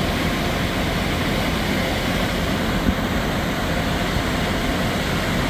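Steady rush of the Sheep River's falls and rapids, an even roar of fast water.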